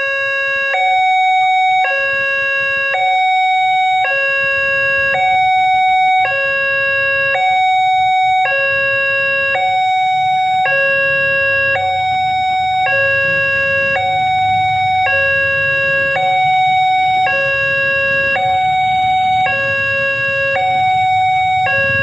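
Railway level-crossing warning alarm sounding through the signal's loudspeaker, alternating steadily between a low and a high tone about once a second: the signal that a train is approaching and the crossing is closed. A low rumble grows beneath it through the second half.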